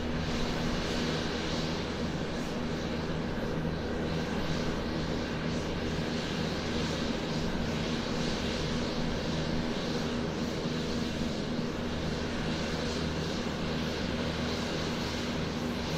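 Airplane taxiing on the ground, its engine running at a steady low power. A continuous, even hum with a low drone and a noisy rush above it, with no rise or fall in pitch.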